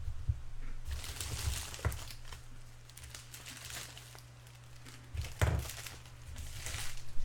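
Trading cards and crinkly card-pack wrappers being handled: irregular rustling and crinkling, with a few soft knocks a little past halfway, over a steady low electrical hum.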